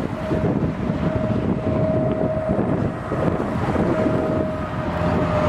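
Strong wind buffeting the microphone, gusty and uneven. Underneath it a faint steady high tone holds, sliding slightly lower near the end.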